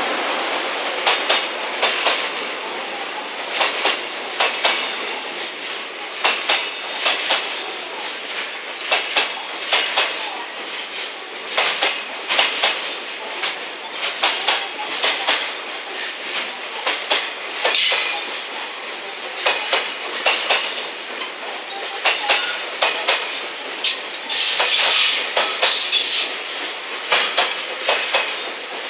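Container flat wagons of a freight train rolling past, their wheels clacking in quick clusters over the rail joints. A brief high wheel squeal comes about 18 seconds in, and a longer one at about 24 to 26 seconds.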